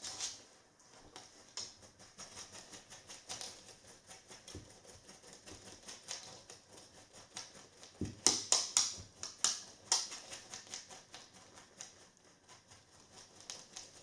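A dog's claws clicking irregularly on a hardwood floor as it shifts and steps about, with a denser run of clicks about eight seconds in.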